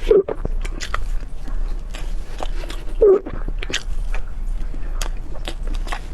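Close-up mouth sounds of someone chewing soft chocolate mousse cake: many small wet clicks and smacks, with a short low sound near the start and another about three seconds in.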